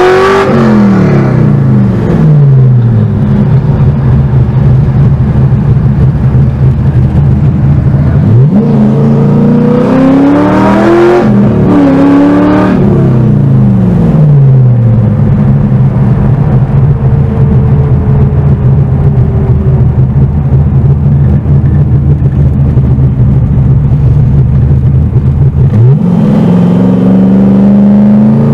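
LS1 V8 engine of an LS-swapped Mazda RX-7 FD, heard from inside the cabin at parade-lap pace. The revs drop at first, climb about eight seconds in, fall away again, hold a steady cruise for a long stretch, then climb once more near the end.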